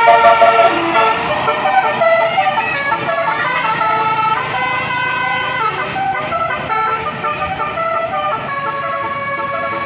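Basuri telolet musical horn on a tour bus playing a melody, several steady tones sounding together and stepping from note to note, with a long held chord near the end.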